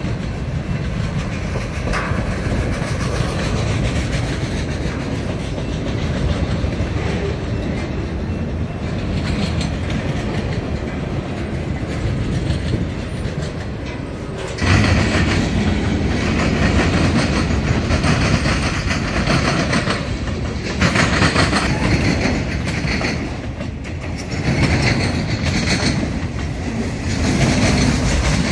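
Freight train cars rolling past, a steady rumble of steel wheels on rail with the clickety-clack of wheels crossing bolted rail joints. About halfway through, the sound gets closer, louder and brighter.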